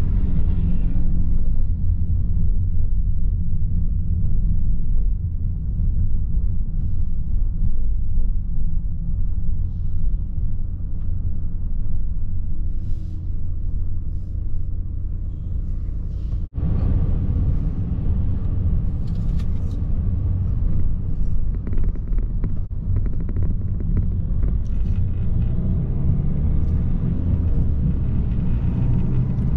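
Steady low rumble of engine and road noise inside a Citroën car's cabin while it drives. The sound drops out for an instant about halfway through.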